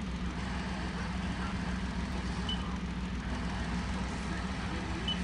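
Steady low hum with hiss from a Peugeot 108 radio head unit tuned to FM presets that carry no station, with two short, faint beeps as the touchscreen presets are pressed, about two and a half seconds in and near the end.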